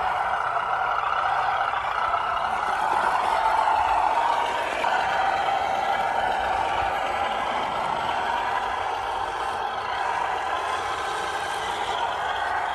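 RC Jimny scale crawler's motor and gears whining steadily, the pitch drifting up and down with the throttle as it crawls over rough ground.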